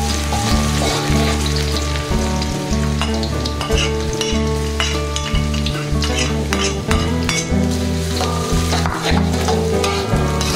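Sliced shallots and garlic sizzling in hot oil in a metal wok, stirred by a metal spatula that scrapes the pan again and again. Background music with held low notes plays underneath.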